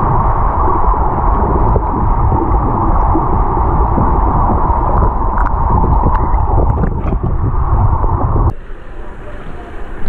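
Water rushing past a camera held underwater while swimming: a steady low rumble, with a few faint clicks. About eight and a half seconds in it cuts off sharply as the camera breaks the surface, leaving quieter splashing water.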